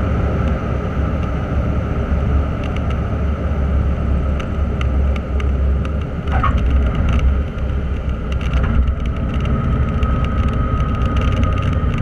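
Cessna 150's four-cylinder Continental O-200 engine running steadily, heard from inside the small cabin while the plane rolls on the ground, with a steady high whine and frequent small rattles and knocks.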